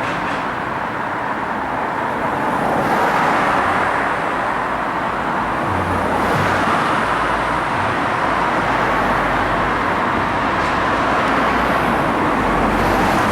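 Steady road-traffic noise, a continuous even rush of vehicle sound with no breaks.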